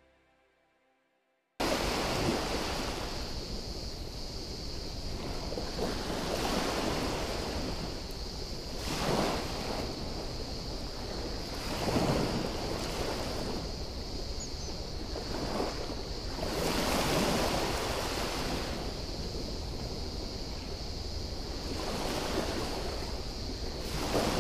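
Small waves washing onto a pebbly beach, the wash swelling every two to three seconds, over a steady high-pitched hiss. It starts after about a second and a half of silence.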